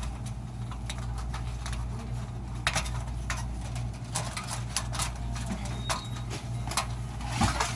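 Irregular clicks and taps as plastic fluorescent tube sockets are worked loose from a fixture's metal channel, over a steady low electrical hum.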